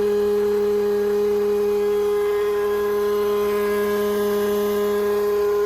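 A 2003 Mercedes CL500 makes a steady hum at one fixed pitch, with a higher ringing tone above it, that does not rise or fall. The owner cannot say what causes the noise.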